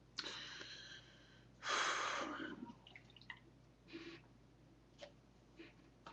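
A man chugging beer from a tall can: noisy breaths and slurping gulps, the loudest burst about two seconds in, followed by a few small, quiet swallows.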